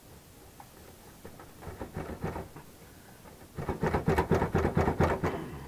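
Rapid rattling and scraping as an Atwood RV furnace's sheet-metal housing is worked at by hand to free it, in two spells, the second louder.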